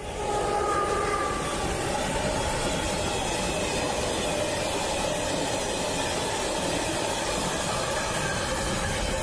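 Freight train going over a level crossing at speed. The noise jumps up about half a second in as the head of the train reaches the crossing, and then the wagons roll past with a steady loud noise of wheels on the rails.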